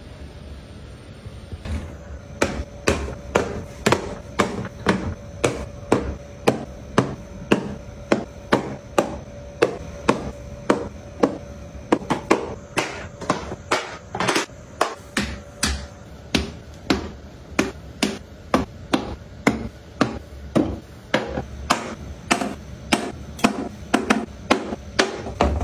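Plastic and glass bottles and jars being set down one after another on hard acrylic and plastic cart shelves. Each one gives a sharp clack, at a very even pace of a little over two a second, starting about two seconds in.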